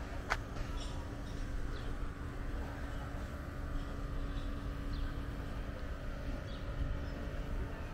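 Outdoor ambience: a steady low rumble with a faint hum, one sharp click just after the start, and scattered faint chirps.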